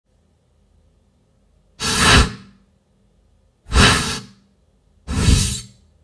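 Three short airy whoosh bursts, a "reverse air burst" transition sound effect, about two seconds apart.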